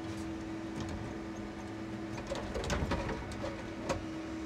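Timber truck's hydraulic crane running with a steady hum while its grapple lays a log mat onto the load: a cluster of wooden knocks and clatter about two and a half seconds in, and one sharp knock near the end.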